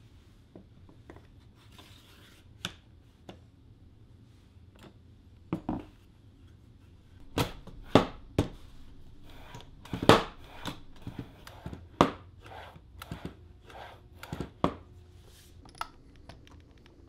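Plywood workpieces and parts handled, set down and fitted together: scattered irregular wooden knocks and clacks, a handful of louder ones around the middle.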